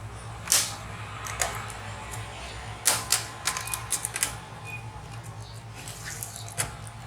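Scattered sharp plastic clicks and taps as a laptop keyboard is pushed back past its retaining notches and lifted out of the palm rest, with a cluster of clicks about three seconds in.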